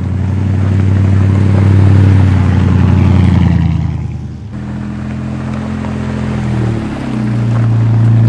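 Vehicle engine and road noise while driving, a low steady drone that swells and shifts in pitch, changing abruptly about four and a half seconds in.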